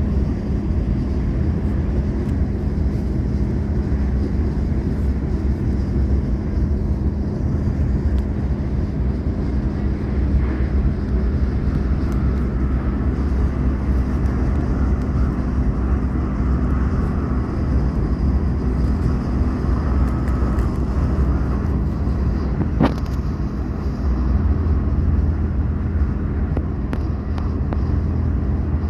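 Passenger train running: a steady low rumble with a constant hum, a few light ticks and one sharp click about three quarters of the way through.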